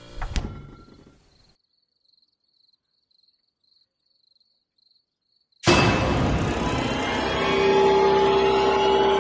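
A horror sound-effect sting: a sharp hit at the start, then near silence with a faint quick ticking, then a little past halfway a sudden loud swell of dense, rumbling drone with steady tones in it that holds to the end.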